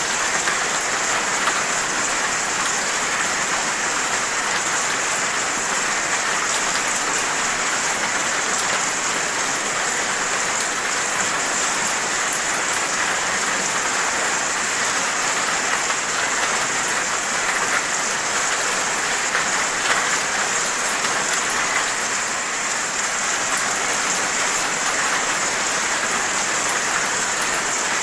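Steady rain falling at night, an even hiss with fine scattered drop ticks and no lull.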